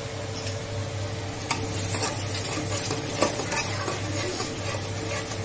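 A slotted spatula stirring and scraping mutton in an aluminium pressure cooker, with irregular clicks against the pot wall as yogurt is mixed into the frying masala, and a light sizzle. A steady low hum runs underneath.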